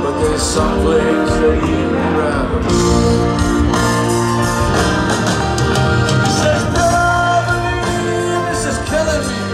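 A live rock band led by piano, playing with singing over it, heard from within a stadium crowd.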